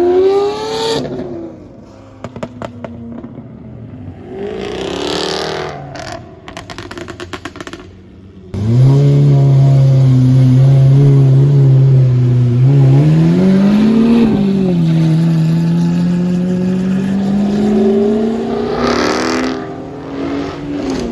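Lamborghini Aventador SV's V12 with a Gintani exhaust revving as it pulls away, then crackling and popping as the revs drop. It then runs loud and steady close by, blips the throttle once with a rise and fall in pitch, and runs on while creeping forward. Another vehicle passes close by near the end.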